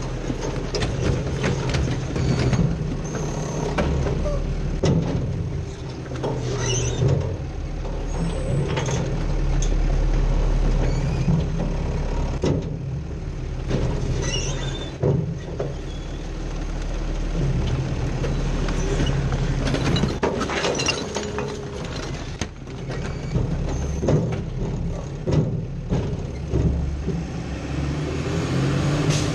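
Heil Rapid Rail side-loading garbage truck heard from inside its hopper: the truck's engine running steadily, with frequent sharp clanks and rattles and a few brief high squeaks.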